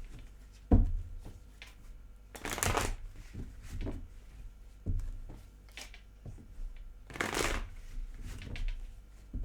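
Tarot cards being shuffled and handled: papery swishes of cards twice, a few seconds apart, with sharp knocks in between, the loudest about a second in.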